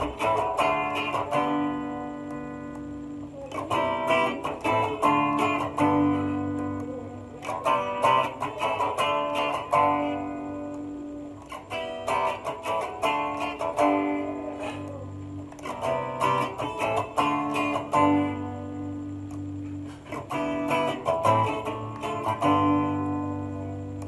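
Electric Super Strat guitar with high-output hotrail humbucker pickups, its bridge and middle pickups combined out of phase for a hollow tone. The same short riff is played about six times, roughly every four seconds, as the coil-split settings change between passes.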